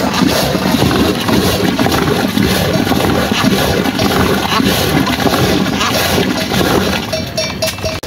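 A flock of livestock calling, many animals bleating over one another in a continuous, dense mass.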